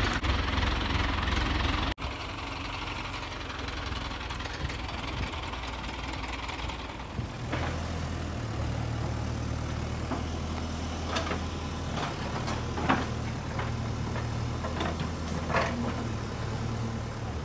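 Excavator engine running steadily, with a few short sharp knocks in the second half.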